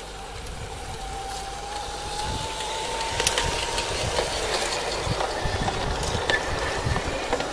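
LGB garden-scale model train passing close: the locomotive's electric motor whines with a slowly rising tone, and the wheels of the coaches and van click over the track as they roll by, growing louder through the pass.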